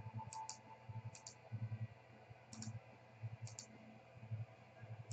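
Faint computer mouse clicks, coming as quick double clicks about once a second, with soft low knocks under them.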